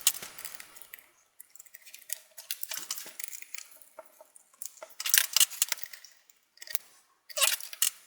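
Screwdriver working small Phillips screws out of a laptop's LCD frame: irregular small clicks and scrapes of metal on metal and plastic, with quicker runs of clicks about five seconds in and again near the end.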